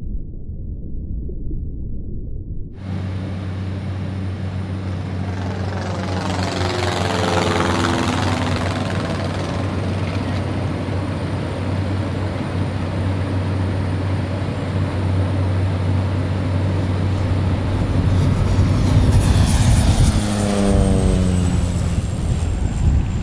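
A deep rumble for the first few seconds, then a single-engine propeller floatplane's engine droning steadily. Its pitch falls as it passes by, about six seconds in and again near the end.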